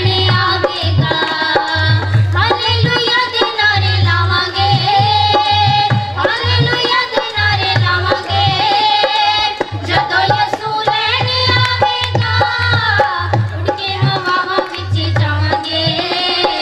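A group of women and girls singing a Punjabi Christian hymn (Masihi geet) together into microphones. A steady rhythm is played on hand drums underneath.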